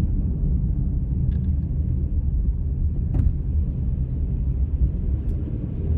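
A car driving, heard from inside the cabin: a steady low rumble of engine and road noise, with a single click about three seconds in.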